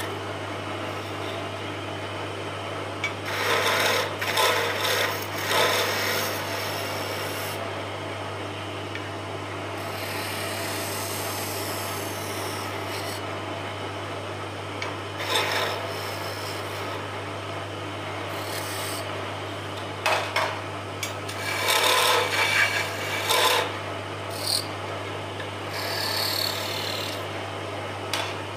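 Wood lathe running with a steady low hum while a turning tool scrapes the spinning wooden spindle. The scraping comes in louder bursts, around 4 to 6 seconds in, briefly near 15 seconds, and again from about 20 to 24 seconds in.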